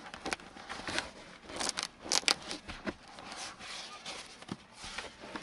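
Hands rubbing and tugging at car carpet and interior trim: scratchy rasps and small clicks, loudest in a cluster about two seconds in.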